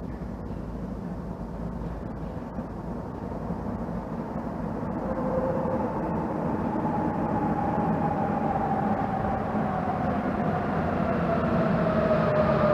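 Sapporo Municipal Subway Tozai Line rubber-tyred train arriving at the platform: a rumble that grows steadily louder, joined about halfway through by a whine falling in pitch as the train slows.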